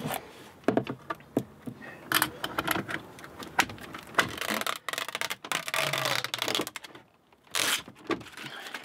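Irregular plastic clicks, taps and rattles of a 10-inch tablet screen being handled and clipped onto a car stereo head unit, with a brief louder rush of noise a little before the end.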